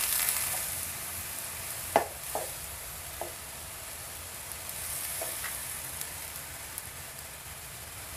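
Diced chicken breast sizzling in a nonstick frying pan with a splash of water, stirred with a spatula: a steady sizzle with a few short scrapes and taps of the spatula against the pan, the loudest about two seconds in.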